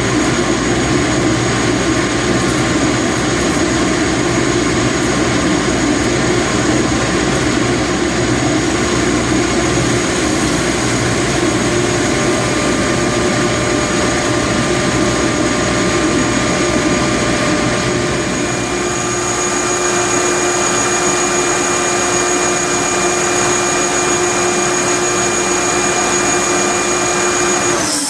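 Quincy QSI25 25 hp rotary screw air compressor running steadily inside its acoustical enclosure: a constant machine hum and whir with steady whining tones. The tone shifts slightly about two-thirds of the way through.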